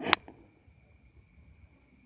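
A single sharp knock or click just after the start. Underneath runs a faint steady high tone with a higher one pulsing on and off.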